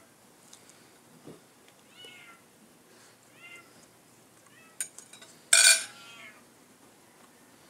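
An animal crying out repeatedly: four short, high calls about a second and a half apart, then a sharp click and one much louder, longer call about five and a half seconds in.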